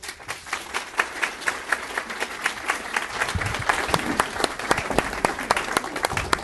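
Audience applauding: many people clapping, swelling over the first few seconds and then holding steady.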